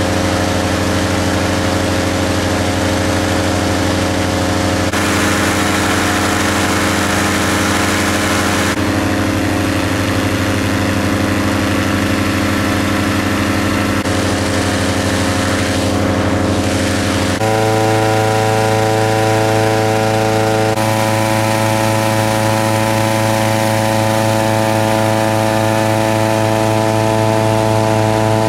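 Petrol-engine inflator fan running steadily, blowing cold air into a hot air balloon envelope during cold inflation; its pitch steps up once about two-thirds of the way through.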